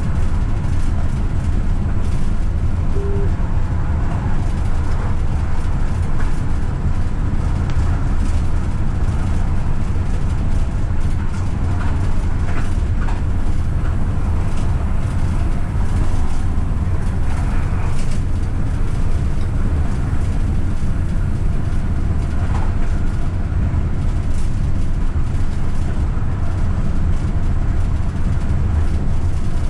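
AVG Stadtbahn light-rail train running steadily at speed on open track, heard from the driver's cab: a continuous low rumble of wheels on rails and running gear.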